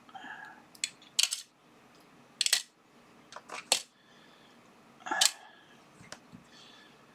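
Small neodymium magnets clacking and clinking as they are dropped into a storage box: about six sharp, irregular clacks, a couple of them with a brief metallic ring.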